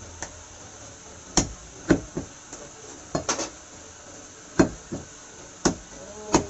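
Heavy butcher's cleaver chopping meat on a round wooden chopping block: about ten sharp chops at an uneven pace, some in quick pairs.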